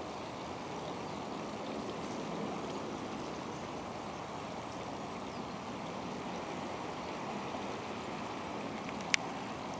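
Steady rushing outdoor background noise with one sharp click near the end.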